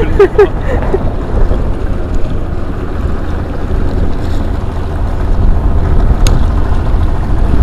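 Wind buffeting the camera microphone in a steady low rumble, over the sound of choppy sea against a concrete seawall. A single sharp click about six seconds in.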